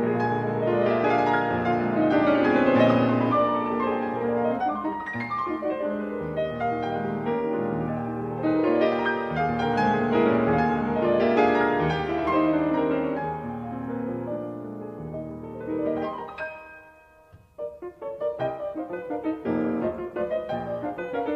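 Solo piano playing a virtuoso waltz paraphrase: dense, sweeping passages in both hands. About three-quarters through the music thins out almost to silence, then resumes with lighter, detached chords.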